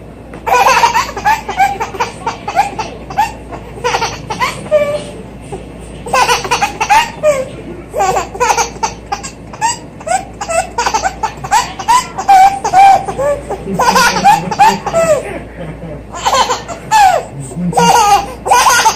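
A baby laughing over and over in short, high-pitched bursts of giggles with brief pauses between them.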